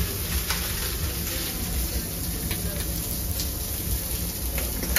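Steady background din of a busy street-food shop, with indistinct voices and a few faint light clicks.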